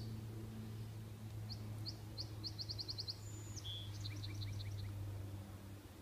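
A songbird singing: a run of short high notes that speeds up, then a brief high whistle and a few quick paired notes, over a steady low hum.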